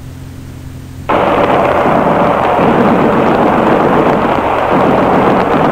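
Off-air shortwave radio recording: a faint hum and hiss, then about a second in a loud, dense crackling noise like explosions starts abruptly and carries on, heard through the narrow sound of an AM broadcast.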